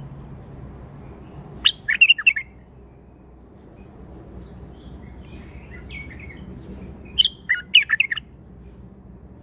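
Male white-eared bulbul singing: two short, loud phrases of quick warbled notes, one about two seconds in and one near the end, with a few softer notes between them.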